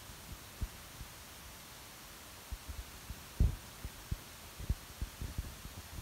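Microphone noise: a steady hiss with irregular low thumps and rumble, the loudest about three and a half seconds in.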